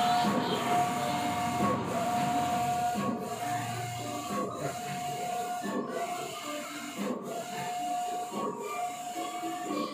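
Large-format tarpaulin printer printing: the print-head carriage runs back and forth across the media with a steady whine, pausing briefly at each reversal about every second and a quarter.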